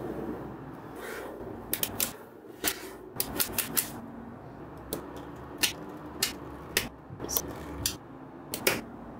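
Small magnetic balls clicking sharply as they snap onto one another, one at a time at an irregular pace, with quick runs of several clicks in a row.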